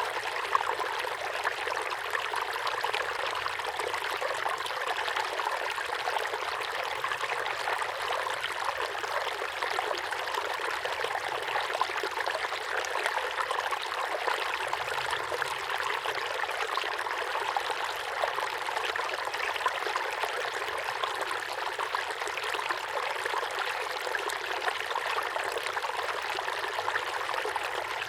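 Small waterfall pouring steadily into a pond, a continuous splashing rush of water with no change.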